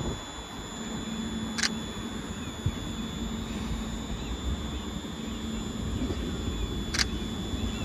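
Steady low rumble of an approaching ScotRail Class 156 diesel multiple unit, with a faint steady hum under it and two faint clicks.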